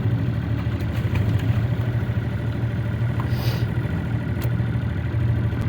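Tohatsu outboard motor running steadily at idle, a low even hum.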